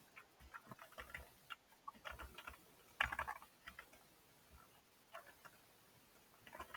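Computer keyboard typing in short irregular runs of faint keystrokes, with the busiest, loudest cluster about three seconds in.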